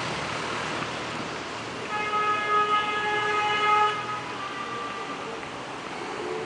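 Street traffic noise with a vehicle horn sounding one steady blast of about two seconds, starting about two seconds in, followed by a fainter, shorter tone.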